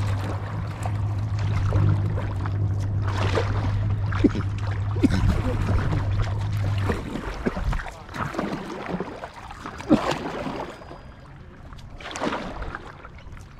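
A boat motor runs steadily with a low hum, then cuts off about seven seconds in; after that come scattered light knocks and taps.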